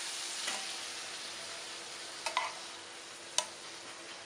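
Faint sizzling hiss of hot chermoula sauce, fading slowly, as it is spooned over fried sardines, with a few sharp clinks of the spoon against the pot and plate.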